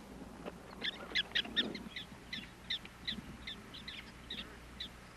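Prairie dogs calling: a quick run of short, sharp chirping barks, about three a second, starting about a second in.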